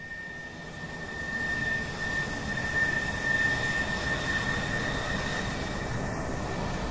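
A steady rushing, rumbling noise that swells up over the first couple of seconds and then holds level, with a thin high whistling tone through its first half.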